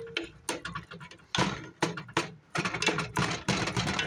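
A spatula knocking and scraping against the side of a metal pot as ground turkey is chopped up and stirred: a quick, irregular run of clacks.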